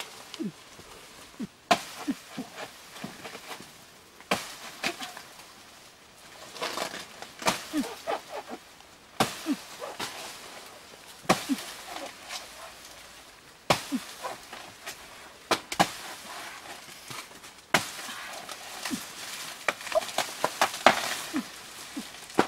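A hand blade chopping into a banana plant's fibrous stalk to cut down a bunch. There are about a dozen sharp strikes, a few seconds apart at first and coming more quickly near the end.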